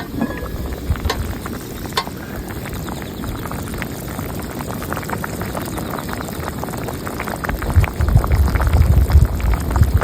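Kimchi hot pot bubbling at a boil, a dense patter of small pops and bursts. A low rumble joins in for the last couple of seconds.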